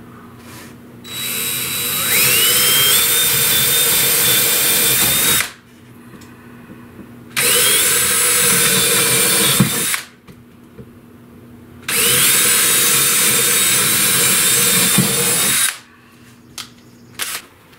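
Cordless drill boring three holes into the wall, one after another. In each run the whine rises as the drill spins up, then holds steady, and there is a short pause between holes.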